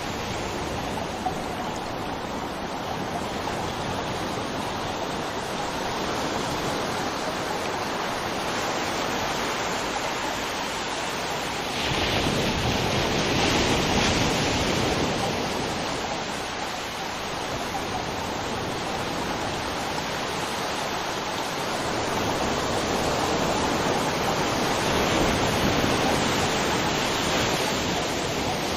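River water flowing, a steady rushing noise that swells a little about twelve seconds in and again near the end.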